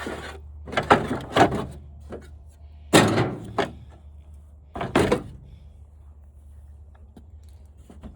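Sharp knocks and clunks, about eight in the first five seconds, as stuck parts of a flat-screen TV are worked loose during a teardown. A steady low hum runs underneath.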